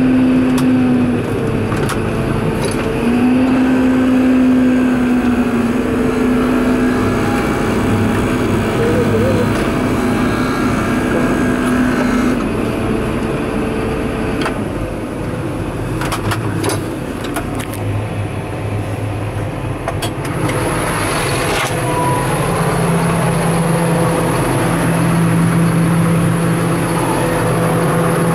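John Deere 7930 tractor's engine running steadily, heard from inside the cab, its pitch shifting a couple of times. A thin high whine joins it about two-thirds of the way through.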